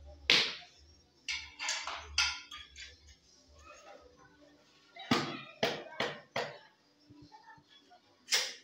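A metal trowel knocking and clinking against ceramic tiles and mortar, in short groups of sharp taps with a brief ring after each.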